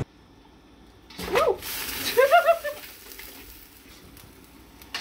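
Short high cries: one gliding cry about a second in, then a quick run of three or four wavering notes a second later, over a quiet background.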